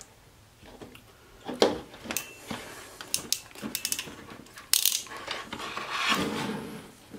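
Hand wire stripper-crimper tool working on the end of a wire: a series of sharp mechanical clicks and snaps spread over several seconds, with handling rustle between them.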